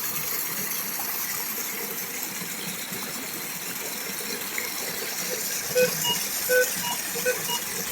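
Waterfall water rushing steadily over rock. From about six seconds in, a string of short, evenly repeated tones sounds over it.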